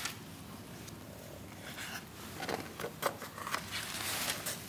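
Pages of a softcover photobook being turned by hand: paper rustling, with a few short ticks of paper in the middle and a longer rustle near the end as the new page is laid flat.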